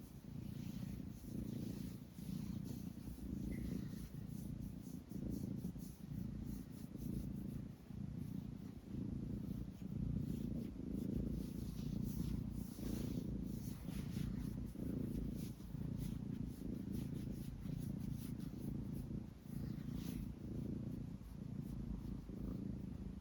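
Domestic cat purring, a low rumble that swells and dips with each breath, about one cycle every second or so.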